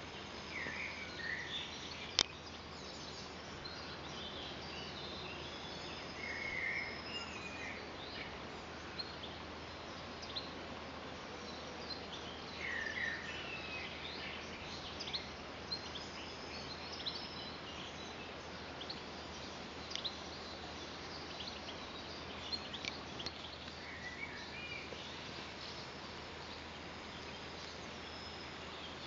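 Outdoor ambience: bird chirps and short calls scattered over a steady background hiss, with one sharp click about two seconds in.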